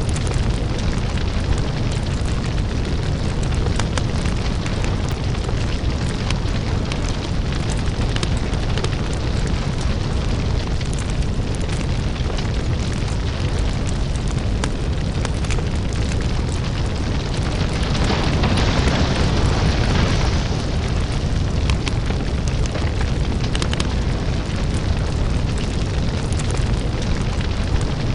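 Crackling lava-fire ambience: a deep steady rumble under dense crackles and pops, with a louder hissing swell about eighteen seconds in that lasts a couple of seconds.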